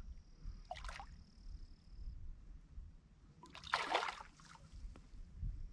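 Water splashing twice, a short splash about a second in and a louder, longer one around four seconds in, as a hooked carp thrashes at the surface while it is reeled in.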